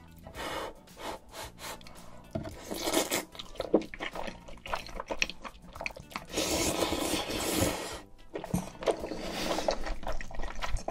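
Close-miked eating of glass noodles in a sticky spicy sauce: slurping and wet chewing that come in spells, loudest around three seconds in and again from about six to eight seconds. Soft background music runs underneath.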